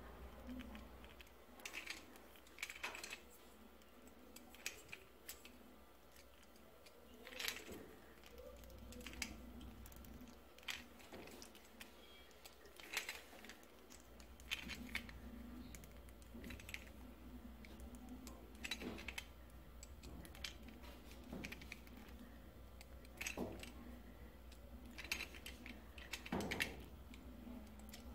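Faint handling noises: scattered small clicks and light knocks, one every second or two, as a braided PVC gas hose is worked onto the metal hose nozzle of a Vinigas cooking-gas regulator.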